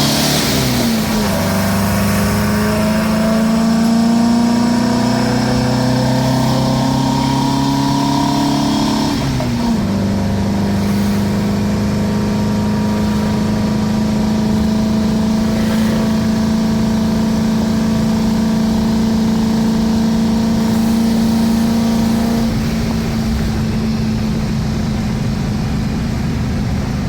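1977 VW Brasília's air-cooled 1600 flat-four engine heard from inside the car, pulling hard with its pitch rising. The pitch drops at an upshift about a second in and again about nine seconds in, then holds steady at cruise before easing off near the end.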